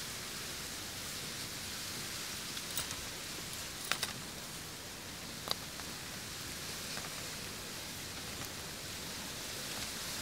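Steady outdoor background hiss, with a few small sharp clicks near the middle, a close pair of them about four seconds in, as fishing line and a hook rig are handled.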